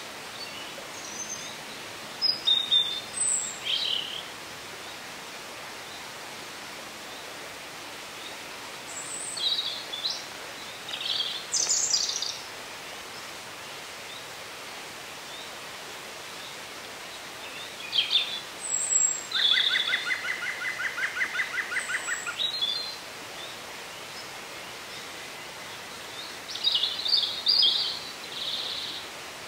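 Woodland songbirds singing in short, high chirping phrases, spaced several seconds apart. About two-thirds of the way through, one longer song includes a run of quick repeated notes lasting about three seconds. Under the birds there is a steady hiss.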